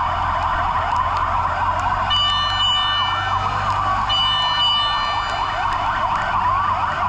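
Several fire and rescue vehicle sirens sounding together, overlapping fast yelping sweeps and a slower wail. A steady higher tone cuts in twice, over a low steady hum.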